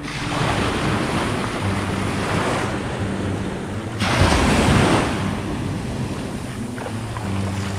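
Wind buffeting the microphone over sea water washing, with a louder surge of noise about four seconds in.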